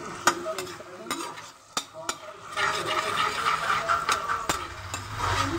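Chopped onions sizzling in hot oil in a kadhai as they are fried. A perforated steel ladle stirs them, clicking and scraping against the pan several times.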